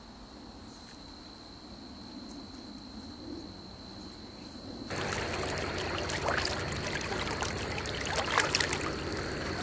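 Flowing river water: a faint, even rush at first, which becomes suddenly louder and more crackly about five seconds in, as of water running over a shallow riffle.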